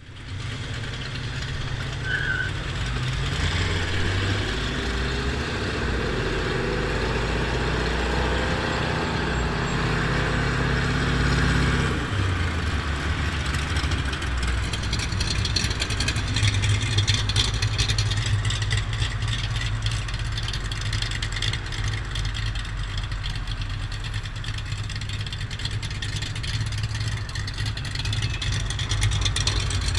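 1974 Honda XL250's single-cylinder four-stroke engine running as the motorcycle rides along in traffic, with wind noise. The engine note rises through the first dozen seconds, changes about twelve seconds in, then holds fairly steady.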